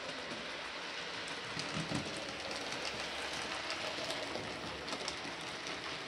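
Model 'Britannia' Class steam locomotive No.70013 'Oliver Cromwell' running along the track of a model railway layout: a steady whirr from its small electric motor and wheels, with scattered light clicks.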